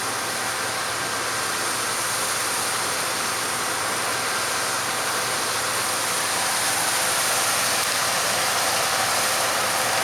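Harvest machinery running steadily: an even machine hiss with a few faint whining tones, growing slightly louder near the end.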